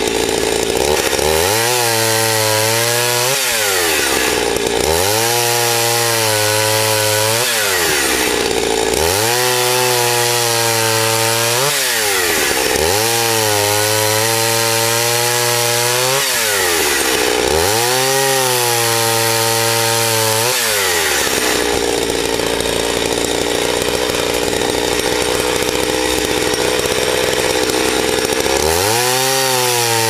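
Gas chainsaw cutting through logs, its engine pitch rising and falling about every four seconds five times over, then holding steady in the cut for several seconds before rising again near the end.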